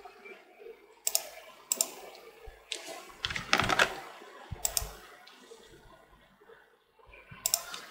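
Computer keyboard and mouse clicks: scattered single clicks, with a quick run of several keystrokes about three and a half seconds in.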